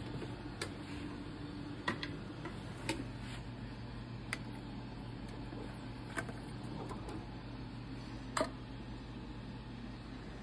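Scattered light clicks and taps, the loudest about eight seconds in, over a steady low hum.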